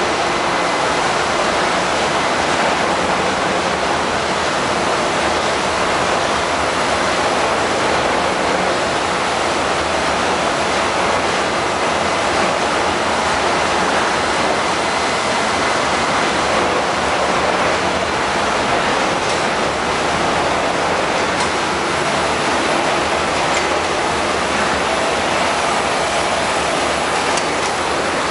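Running machinery aboard a product tanker, heard in the steering gear room: a steady, loud roar with a faint high whine above it.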